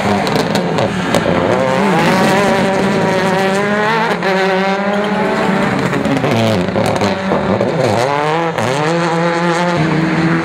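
Rally car engines revving hard, the engine note climbing and dropping again and again through gear changes and lifts off the throttle.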